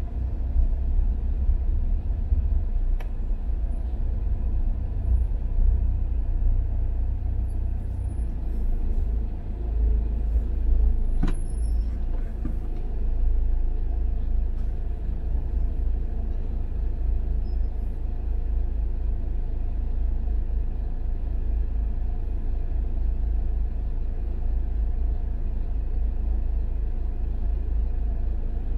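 Steady low rumble of a car in stop-and-go traffic, heard from inside the cabin, with a short sharp click about eleven seconds in.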